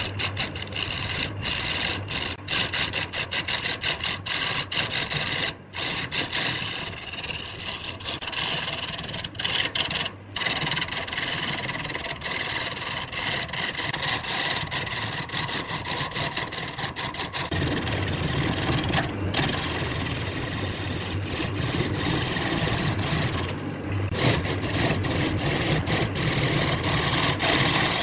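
Wood lathe running while a turning tool works the spinning wood blank, a continuous scraping and cutting sound over the steady whine of the lathe. The sound breaks off briefly several times, and it gets heavier about two-thirds of the way through.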